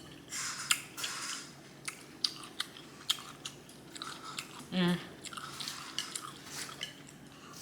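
Close-miked chewing of a mouthful of food, with wet lip smacks and small mouth clicks, and a brief hummed "mm" about five seconds in.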